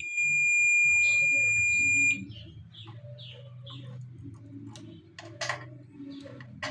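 Multimeter continuity buzzer giving a steady high beep for about two seconds as the probes bridge the microwave high-voltage transformer's primary winding, showing that the winding is continuous. Light clicks and handling noises follow, with one sharper click near the end.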